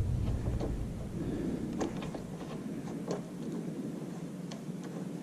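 Faint scattered clicks and rubbing as hands work at a small plastic latch and rubber dust cover behind a motorcycle headlight, about one small click a second.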